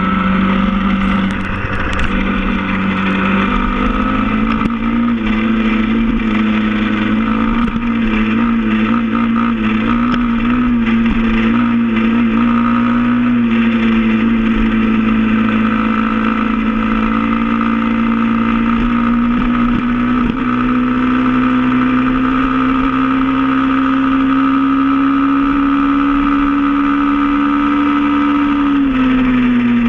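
SSR 110 pit bike's single-cylinder four-stroke engine running steadily as the bike rides along. Its pitch rises a little a few seconds in, holds, and drops near the end as the throttle eases.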